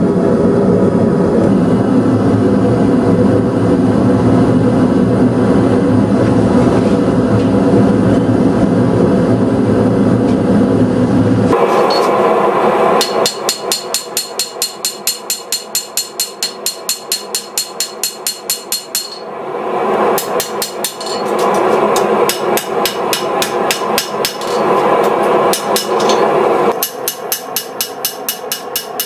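Gas forge burner running with a steady dense noise for the first third or so, cutting off suddenly; then a hand hammer striking a hot blade on the anvil in quick, even runs of ringing blows, about four a second, with short pauses between runs.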